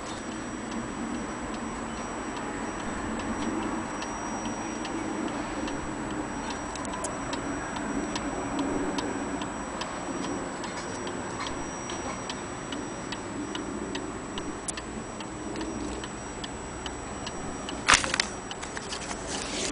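Weight-driven Dutch Zaanse wall clock ticking steadily, an even run of light ticks, about two to three a second. A single sharp knock sounds near the end.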